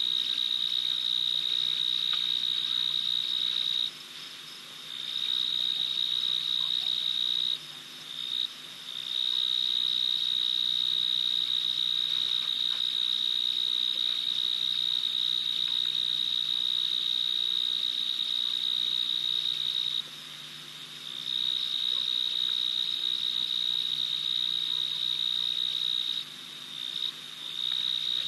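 A night insect's continuous high-pitched trill, steady in pitch, stopping for about a second a few times and starting again.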